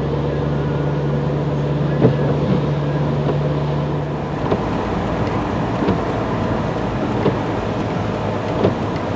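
Car interior driving noise: engine and road noise with a steady low drone that drops away about four seconds in, and a few faint knocks.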